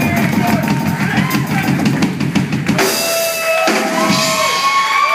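Live drum kit solo: fast, dense playing across the drums and cymbals, the low drums dropping out about three seconds in under a ringing cymbal wash, followed by a few more kick-drum hits.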